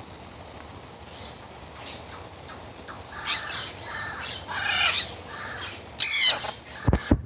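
A bird squawking: a series of short calls starting about three seconds in, then one loud, harsh squawk about six seconds in. A few dull thumps follow near the end.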